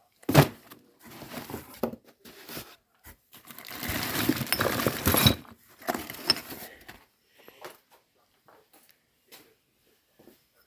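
Metal outboard motor parts being handled on a workbench: a sharp knock, a couple of seconds of rattling and scraping, then a few clunks and faint scattered clicks.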